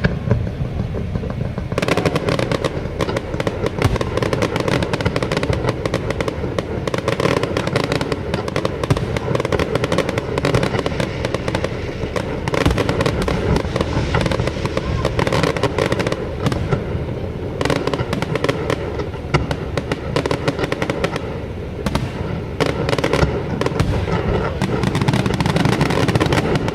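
Aerial fireworks going off in rapid succession: a dense, continuous crackle and popping of many bursts, thickening about two seconds in.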